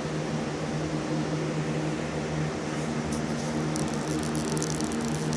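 Steady machine hum with a few low tones under a faint hiss, with light crackling high up in the last second and a half.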